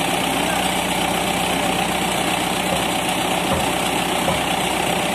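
Tractor engine idling steadily, with a few dull low thumps after about three seconds.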